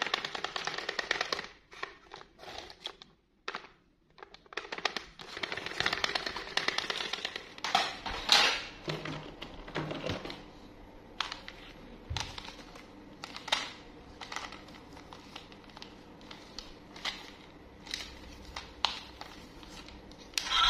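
Plastic toys rattling and knocking against each other as a hand rummages through a cardboard box full of them: a dense clatter at the start and again around five to seven seconds in, then scattered single clicks and knocks.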